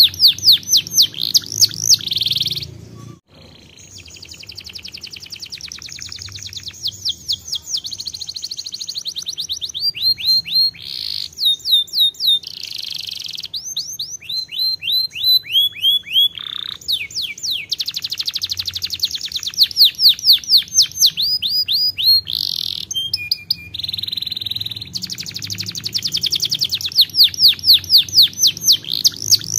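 Domestic canary singing a long song of fast trills: runs of rapid falling notes, many to the second, switching from one run to the next in speed and pitch, with a short break about three seconds in.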